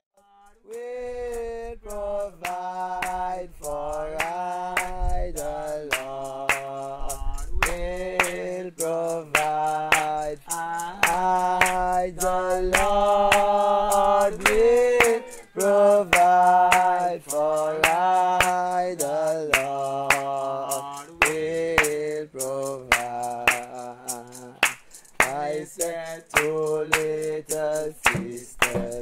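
Voices singing a slow hymn in long held notes over a steady beat of sharp clicks, about two a second.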